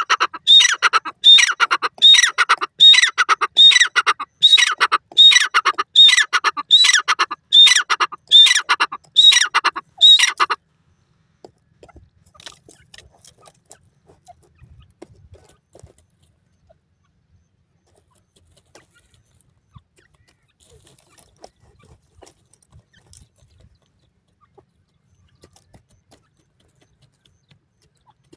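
Grey francolin calling: about fifteen loud, harsh calls repeated in quick, even succession, which stop suddenly about ten seconds in. After that only faint scattered ticks and rustles are heard.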